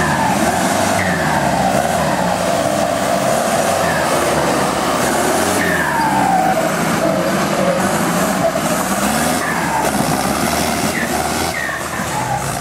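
Off-road vehicle engines running and revving, their pitch sliding down and up several times over a steady running noise.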